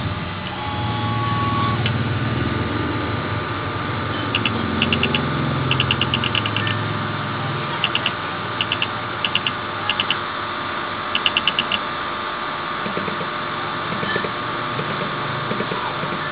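Teneth cutting plotter running, its carriage motors moving in short steps over a steady machine hum. Through the middle come clusters of quick, high-pitched ticks, two to six at a time.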